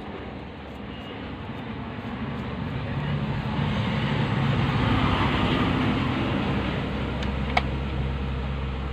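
Engine noise from a passing vehicle swells to a peak about five seconds in, then fades. A short click comes near the end.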